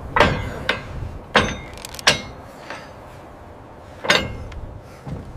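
Hammer blows on an iron girder joint: four loud metallic strikes at uneven intervals, each ringing briefly, with a couple of lighter knocks between them.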